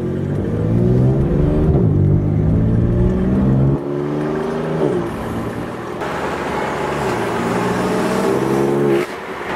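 A vehicle's engine or motor running with its pitch rising and falling, as in accelerating and slowing, broken by abrupt cuts a few times.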